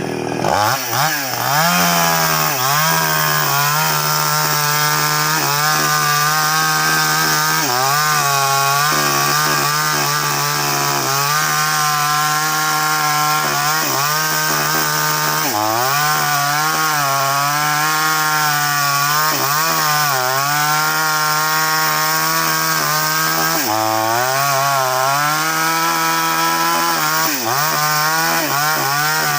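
Two-stroke chainsaw revving up about half a second in, then running at full throttle while cutting into a felled sengon (albizia) trunk. Its pitch dips briefly three times as the chain loads up in the wood.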